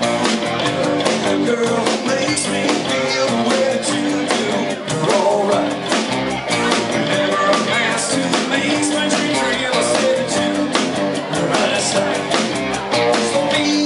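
Rock band playing live, with drums, electric bass and guitar and a man singing into a microphone.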